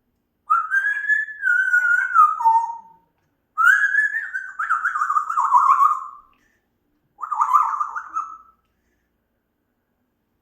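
African grey parrot whistling three phrases, each wavering and falling in pitch, the last one short.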